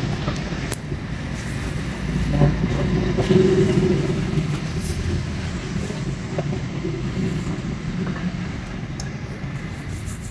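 Steady vehicle noise, a low engine and road rumble with a few faint clicks.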